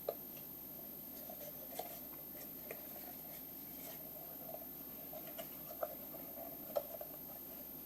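Light, scattered clicks and taps of plastic interior trim pieces being handled and pushed into place, over a faint steady room hum.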